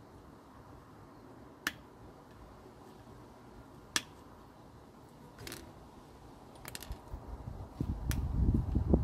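Cutting pliers snipping small pieces of plastic off a switch housing: several sharp clicks a second or two apart, one of them a quick little cluster. Low rumbling handling noise builds up near the end.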